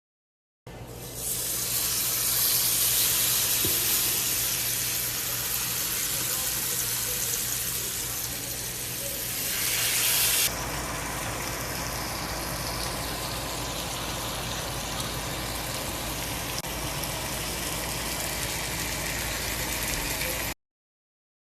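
Steak sizzling in a hot pan, a steady hiss. About ten seconds in it drops suddenly to a quieter sizzle.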